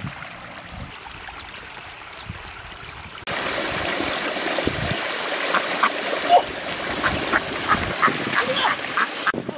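Shallow muddy stream running, louder from about a third of the way in, with domestic ducks giving a run of short quacks from about halfway and some splashing in the water.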